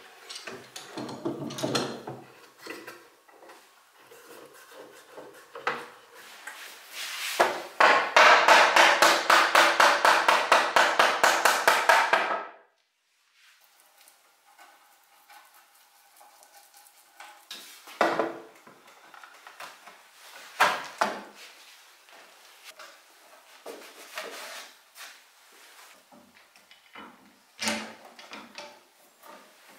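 Hand woodworking on a wooden wardrobe part: scattered knocks and clicks of wood and tools. From about a quarter of the way in, a loud, fast, rhythmic rasping, many strokes a second, runs for about five seconds and stops abruptly.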